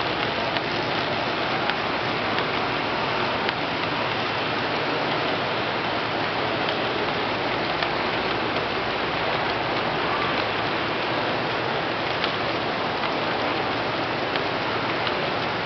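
Large-scale G-gauge model freight train rolling past on its track: a steady rushing noise of many metal wheels on rail with faint scattered clicks.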